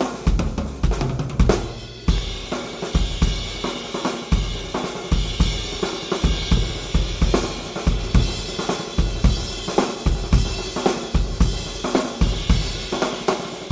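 Yamaha 9000 Recording Custom drum kit with Paiste 505 cymbals played in a steady groove: bass drum, snare and hi-hats, recorded through a Yamaha EAD10. A ride or crash cymbal wash comes in about two seconds in and carries on over the beat.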